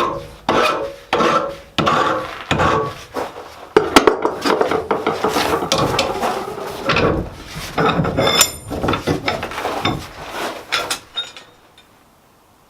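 A hand file rasping back and forth on spring steel in quick repeated strokes, dressing the end of a punch, with a brief metallic ring partway through; the filing stops near the end.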